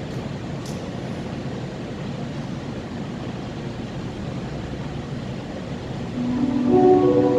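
Steady background noise of an indoor ice rink, with two brief high hisses near the start. About six seconds in, the skaters' program music starts with held notes.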